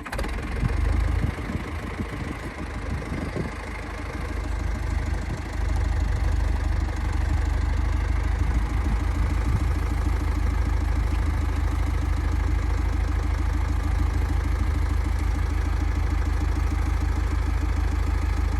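Engine of the machine lifting the sawmill carriage, running steadily with a deep rumble, louder from about six seconds in.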